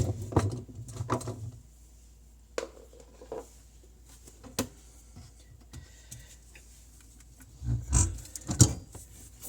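Scattered knocks and clunks from handling the old garbage disposal and tools after it has been broken loose from its mount, with a louder cluster of knocks near the end.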